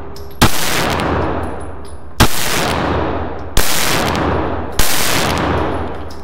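Glock 26 Gen 3 9mm pistol fired four times, the shots coming a little over a second apart. Each shot is followed by a long echo ringing off the concrete walls of an indoor range booth.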